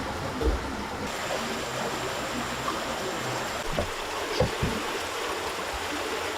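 Steady rushing of flowing water, like a stream. A few soft low thuds come over it in the second half.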